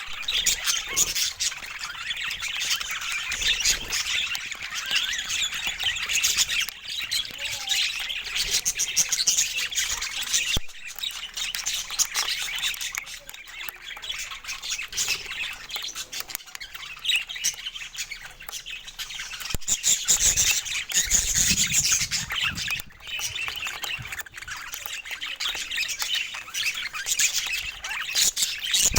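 Budgerigars chattering and chirping without pause, a dense run of quick high warbles and squawks.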